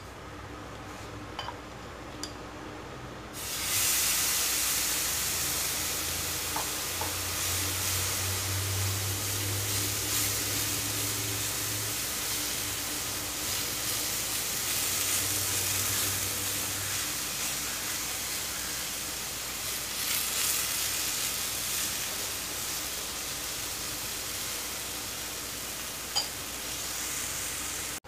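Sabudana (tapioca sago) batter sizzling on a hot tawa. The sizzle jumps up suddenly about three and a half seconds in as the batter meets the griddle, then carries on steadily while a ladle spreads it into a round pancake.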